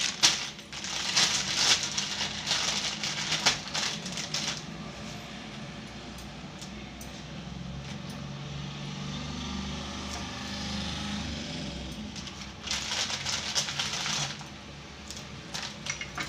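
Kitchen items being handled: quick clinks, clicks and crackly rustling in two bursts, one at the start and one near the end, with a low steady hum in between.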